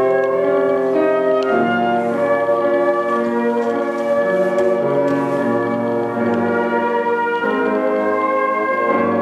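Flute ensemble playing a slow piece in held, overlapping chords that change every second or two.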